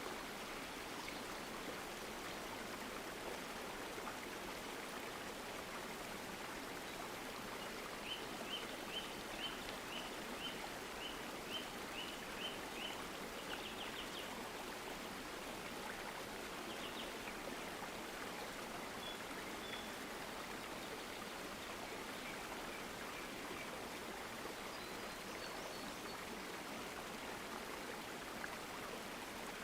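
Steady rush of running stream water, with a bird calling over it: a run of short, high repeated notes, about two a second, for around five seconds in the first half, then a few faint scattered calls.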